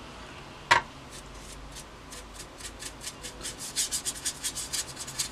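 Quick repeated brush strokes scrubbing across the plastic fuselage of a scale model, blending an oil-paint wash; the strokes begin about two and a half seconds in, about four or five a second, and grow louder. A single sharp knock about a second in.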